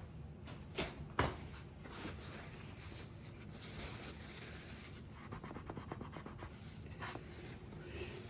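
Paintbrush bristles scratching faintly across a canvas in short strokes, with two sharp clicks about a second in.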